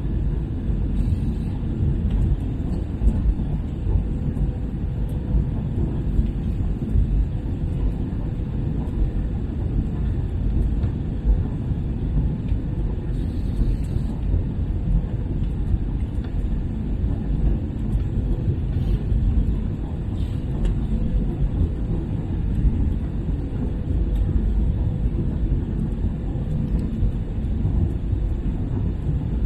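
Cabin noise inside an Airbus A321-200: a steady low rumble of the engines and airflow, with a faint steady hum.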